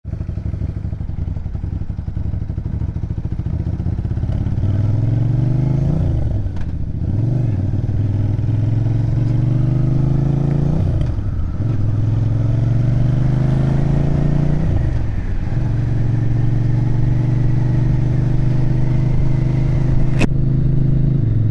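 Motorcycle engine accelerating up through the gears. Its pitch climbs and drops back at each of several shifts, then holds steady at a cruise. A single sharp click comes near the end.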